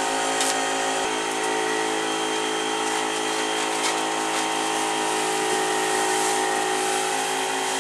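Steady mechanical hum of a crane's motor at a constant pitch as it lowers a heavy bulk bag hanging from its hook.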